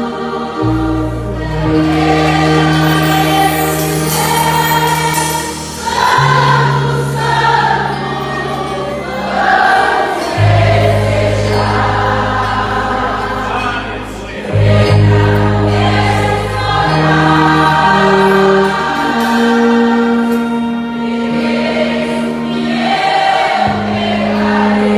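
Church choir singing a gospel hymn over instrumental accompaniment, with held bass notes that change pitch every second or two.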